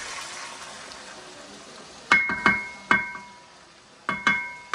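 Faint frying sizzle fading away, then a metal utensil knocked sharply against the wok, three times and about a second later three times more. Each knock rings with a clear, bell-like tone that dies away quickly.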